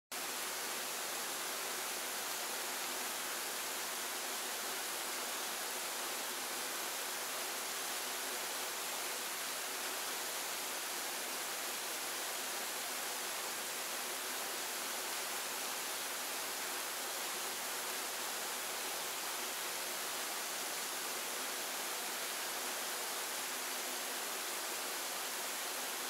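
Waterfall and mountain stream rushing over rock: a steady, even hiss of white water.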